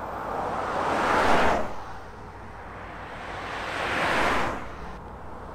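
Two vehicles driving past on the road, one after the other: each a swell of road noise that builds and then falls away, the first peaking just over a second in, the second about four seconds in.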